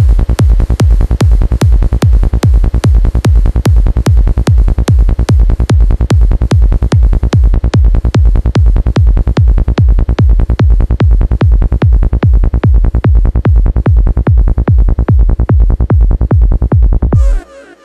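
Electronic trance track: a loud, steady four-on-the-floor kick drum and bass line at about two and a half beats a second. Near the end the beat cuts off suddenly, leaving only a faint fading synth tail.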